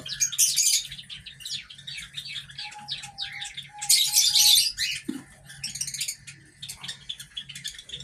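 Cockatiels chirping rapidly and continuously in the aviary, with two loud raspy, hissing bursts, one near the start and one about four seconds in.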